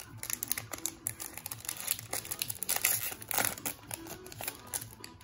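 Trading card pack's foil wrapper being torn open and crinkled as the cards are slid out, a dense run of crackles that is loudest about three seconds in.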